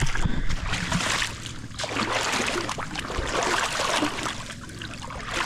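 Boots wading through a shallow creek, water splashing and sloshing with each stride.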